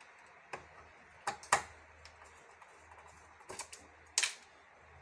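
About half a dozen sharp, irregular clicks and taps of plastic parts and cables being handled in an opened patient monitor's case; the loudest come about one and a half seconds in and about four seconds in.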